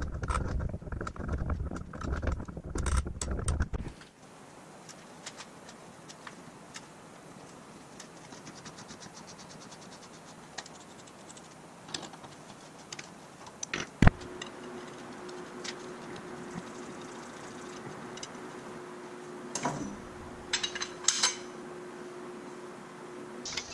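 Hand-threading steel tube ends with a tap and T-handle wrench: metal clinks, scrapes and scattered clicks. The first few seconds are loud clattering and rumbling. After that it is quieter, with a sharp click about halfway through, and then a steady hum runs on under the clicks.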